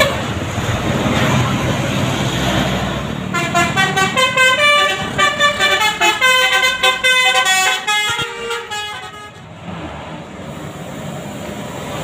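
Basuri telolet multi-tone bus horn playing a fast tune of short notes jumping up and down in pitch, from about three seconds in until about nine and a half seconds. Before and after it, a passing bus's engine and road noise.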